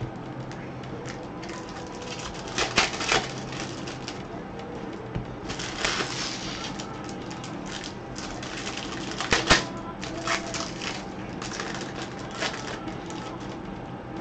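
Baseball card pack wrappers crinkling and tearing open, with cards being handled and shuffled. Louder crackles come in bursts about 3, 6 and 9 seconds in.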